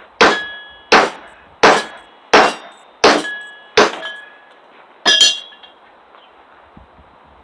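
A 3-pound hammer striking the back of a hatchet with sharp, ringing metal-on-metal clangs, driving the blade into a knotted log. Six evenly spaced blows come about one every 0.7 s, then after a short pause a last, strongly ringing clang.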